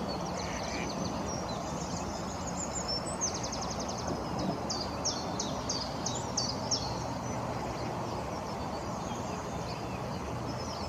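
Small songbirds chirping and calling over a steady background hiss of outdoor noise, with one quick high trill about three seconds in; the chirps thin out in the last few seconds.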